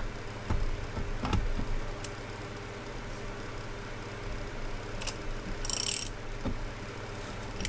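Scattered metallic clicks and knocks from hand tools threading the retainer into a Yamaha 60hp outboard's lower unit, with a short ratchet-like rattle about six seconds in.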